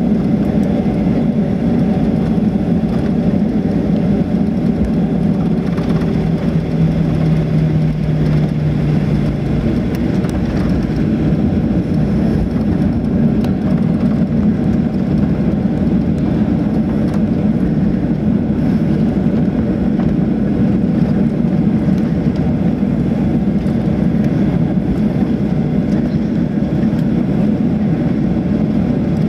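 Steady cabin noise of a Boeing 737-700 taxiing, its CFM56-5B engines running at low taxi power, heard from a window seat over the wing. About six seconds in, a steady hum joins for roughly four seconds.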